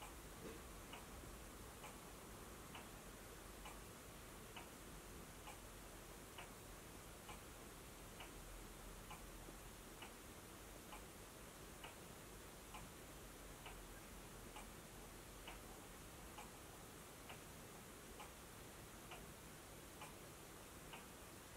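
Faint, steady ticking of a clock, a little under one tick a second, over the near-silent hush of a quiet room.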